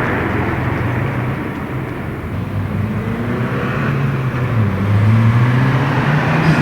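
Subaru WRX's turbocharged 2.4-litre flat-four running through an aftermarket sport resonator midpipe. The exhaust note dips a little, then climbs steadily in pitch and loudness over the last few seconds.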